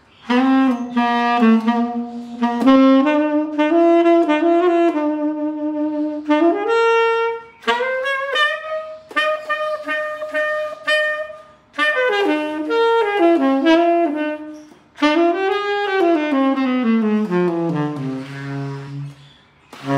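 A tenor saxophone played solo in melodic, jazz-style phrases, with short pauses for breath between them. Near the end a phrase descends to a low held note.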